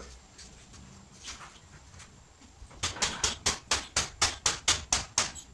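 Hammer tapping: a fast, even run of sharp strikes, about four a second, starting about three seconds in, after a few faint clicks.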